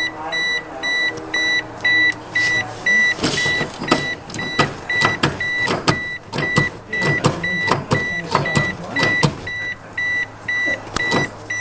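A car's dashboard warning chime beeps rapidly and evenly throughout. Between about three and nine seconds in, the brake pedal is pumped over and over, giving a quick string of clicks and knocks. The pumping pushes the new pads' caliper pistons out until the pedal goes hard.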